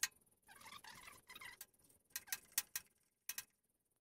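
Metal wrench clicking and clinking on engine bolts, with a short scraping rustle about half a second in, then a quick run of sharp clicks and a last double click.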